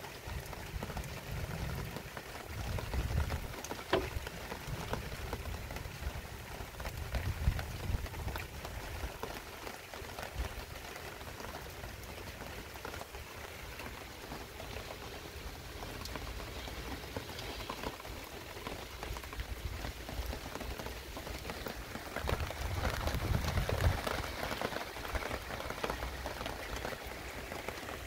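Heavy rain falling steadily, with a few low rumbles swelling and fading, around three seconds in, about eight seconds in and again near the end.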